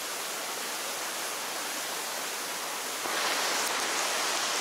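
Mountain stream rushing over rocks, a steady hiss of water that gets louder about three seconds in.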